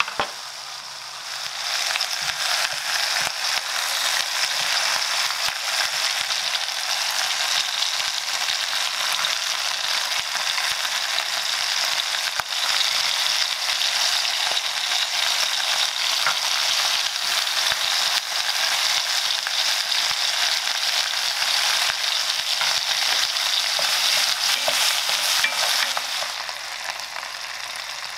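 Pork rib pieces and halved garlic bulbs sizzling in an enamelled cast-iron pot, a steady hiss with fine spattering crackles. It swells about a second and a half in and eases off near the end.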